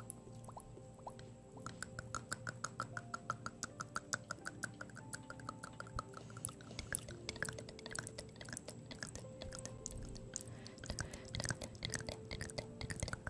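ASMR mouth sounds made close to a microphone: rapid wet clicks and smacks of tongue and lips, several a second, without words.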